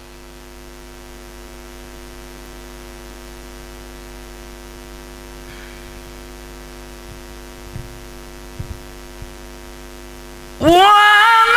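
Steady electrical mains hum from the sound system during a pause in the recitation, with a few faint clicks a few seconds before the end. About ten and a half seconds in, a man's melodic Quran recitation into the microphone starts again, loud.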